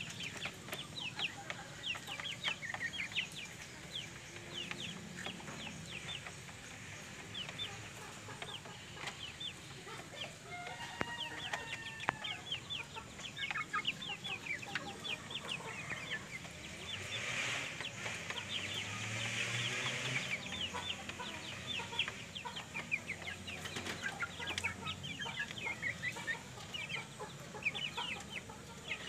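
Domestic chickens clucking, with many short, high chirps all through and a longer, louder call about two-thirds of the way through.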